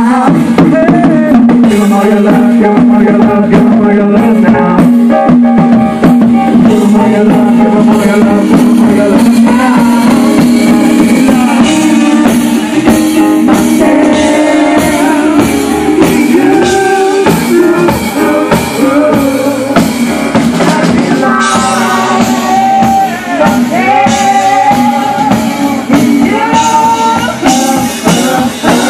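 Live worship band playing loudly: a singer over a drum kit and band.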